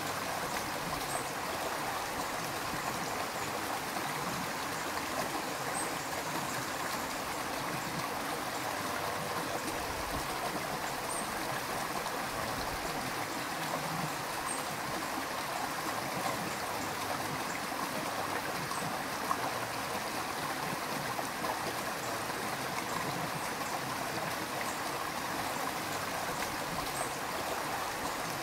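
Shallow rocky river or stream flowing over stones, a steady, even rush and babble of water.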